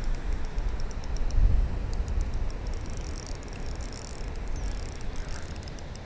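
Spinning reel being cranked on a retrieve, its gears ticking in quick irregular clicks, over a low rumble on the microphone that swells about a second and a half in.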